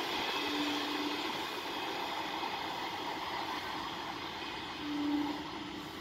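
Conventional EMU local train running away down the track, its rumble and wheel noise fading slowly as it recedes. A short steady low tone sounds twice, faintly near the start and louder about five seconds in.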